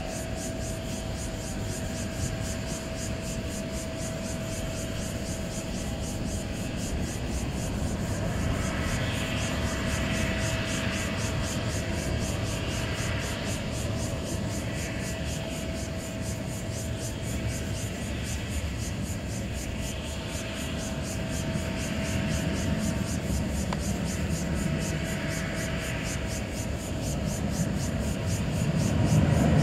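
Boeing 787-9 Dreamliner's jet engines running on the runway: a steady rumble with a mid-pitched whine, growing louder near the end.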